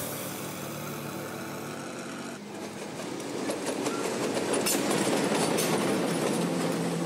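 Mainline diesel-electric locomotives, led by DC-class 4438, passing close by. A heavy rumble of engine and wheels builds from about two and a half seconds in, with sharp clicks of wheels over the rails.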